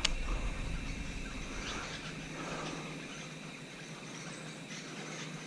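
Faint outdoor background with a steady high-pitched hum, and a single click at the very start.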